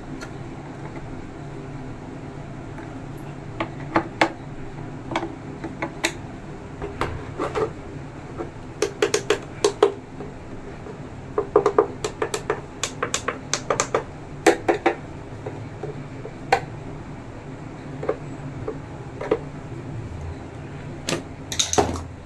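Sharp plastic clicks and taps on a Prestige induction cooker's push-button switch panel, singly and in quick runs of several, over a steady low hum. A brief rubbing rustle comes near the end.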